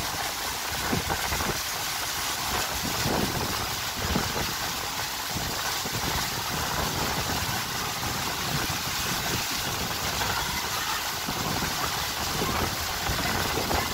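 Water rushing and spraying around a bowl water slide as a steady hiss, over an uneven low rumble.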